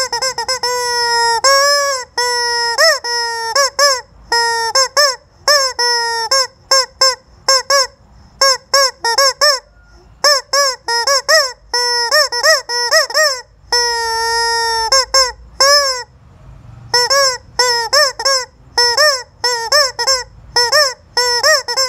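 Rubber squeaky chicken toy squeezed again and again, giving loud, nasal honking squawks. Most are short and come in quick runs, and a few are held for about a second and a half.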